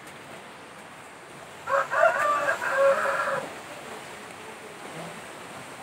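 A rooster crowing once, a call of about a second and a half with a few short broken notes at its start, then a long held note.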